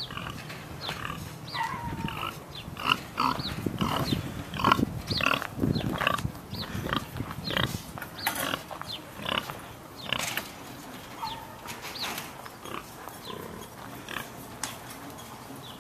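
Domestic pigs calling in a rapid run of short grunts and squeals, thinning out after about ten seconds.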